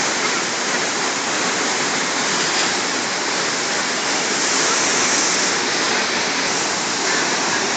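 Waterfall: water falling in a steady, loud, even rush.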